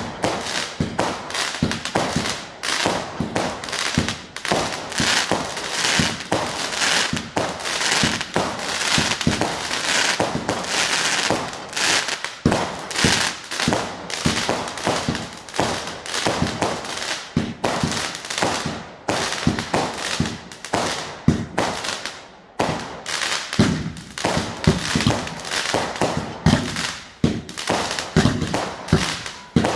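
Consumer fireworks firing in rapid succession: a dense, continuous run of bangs and crackling as shots launch and burst into crackling stars, easing off briefly about twelve and twenty-two seconds in.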